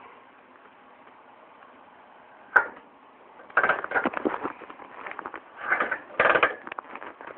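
The single-cylinder two-stroke engine of a 1981 Maico 490 GS is being turned over without running, giving mechanical clatter: one sharp knock, then three short bursts of rattling clicks. This is the strange knock just after top dead centre that the owner is chasing.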